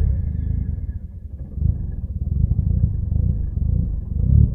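Mazda RX-8's twin-rotor Renesis rotary engine running rough and uneven at low revs just after a hot start, with no throttle applied. It is struggling to hold idle, typical of this car's hot-start problem, where it usually needs a touch of throttle to keep from stalling.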